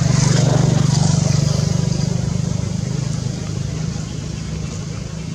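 A motor engine running: a steady low hum, loudest in the first second or so and slowly easing off.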